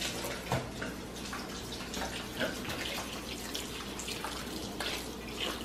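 Kitchen faucet running a steady stream of water into a glass bowl in a stainless steel sink as a salmon fillet is rinsed, with a few light clicks and splashes.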